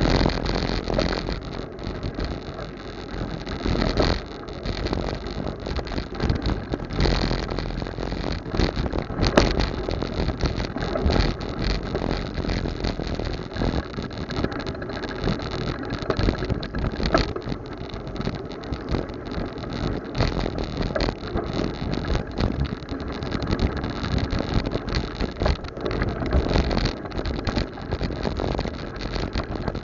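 Street traffic heard from a moving bicycle: motor vehicle engines running and passing without a break, over a steady low rumble.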